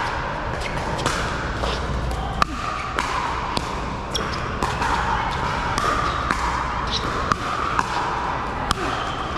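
Pickleball paddles hitting a hard plastic ball in a doubles rally: sharp pops a second or more apart at first, coming quicker near the end as the players volley at the net. They play over the steady background of a large indoor hall.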